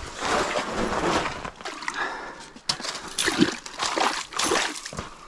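Water splashing and sloshing in an ice-fishing hole around a walleye held there by a lip gripper, in irregular surges with a few sharp knocks from handling.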